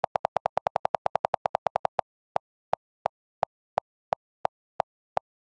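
iPhone keyboard clicks as the delete key is held to erase a typed message: a fast run of about ten clicks a second, slowing to about three a second after two seconds in as it switches to deleting whole words.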